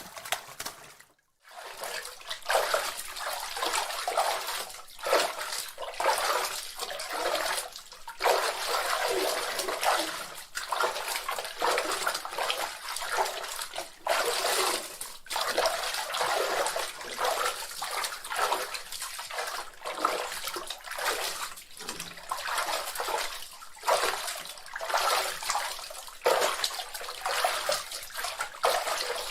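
Bath water splashing and sloshing irregularly as a baby plays in the tub, a continuous run of small slaps and splashes after a brief pause near the start.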